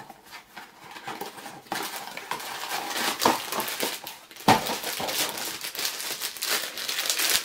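Hands tearing open a small cardboard Funko Mystery Minis box without scissors: irregular rustling, scraping and clicking of cardboard, with one sharp knock about four and a half seconds in.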